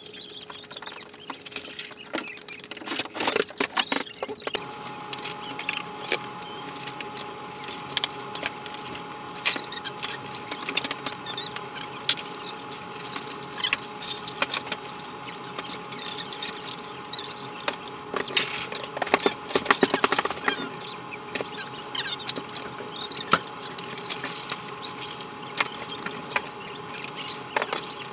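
Aluminium shanty frame poles and hardware being handled, with irregular clicks and clatter and bursts of high, wavering squeaks.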